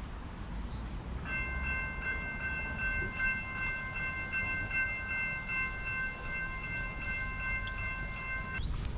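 A steady, high-pitched railway warning tone at a level crossing, starting just over a second in and held for about seven seconds before it cuts off. Under it is a hiss of rain and a low traffic rumble.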